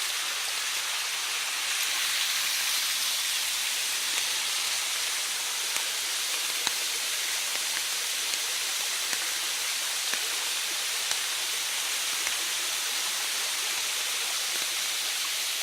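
Steady rush of a rain-swollen waterfall mixed with falling rain, with a few faint ticks of raindrops scattered through it.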